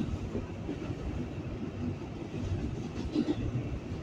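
Inside an R142A subway car running on elevated track: a steady rumble of wheels on rails with scattered clacks, one louder a little past three seconds in.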